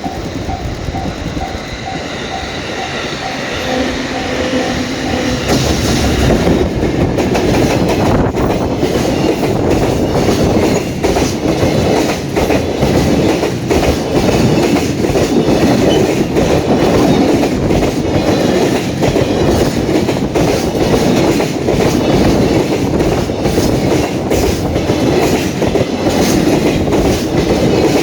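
Freight container train passing close by at a level crossing: its wheels clatter steadily over the rail joints. The crossing alarm dings about twice a second in the first few seconds, and the train noise swells about five seconds in.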